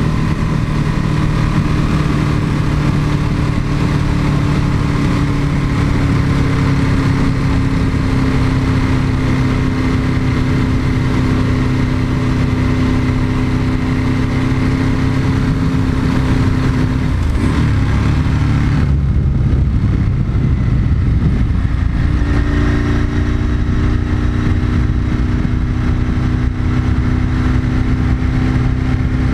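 Ducati 996's L-twin engine running while the motorcycle is ridden, recorded on the bike. The engine note sinks slowly for the first half, breaks up about two thirds of the way in, then settles at a steady pitch.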